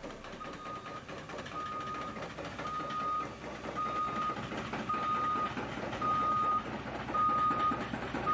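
Back-up/travel alarm on a tracked drilling rig beeping about once a second, one steady tone per beep, over steady machine noise.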